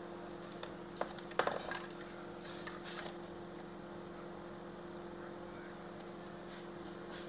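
A few light clicks and taps of small metal tools on a circuit board, most of them between about one and two seconds in, over a steady electrical hum.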